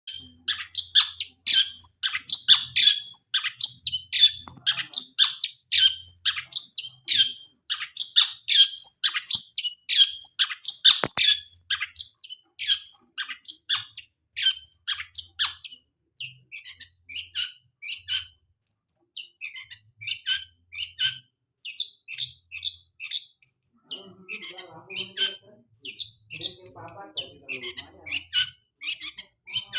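Long-tailed shrike (cendet) singing a fast, unbroken run of short, sharp chirps, several a second, louder in the first half. It is a lure song meant to set other cendets singing.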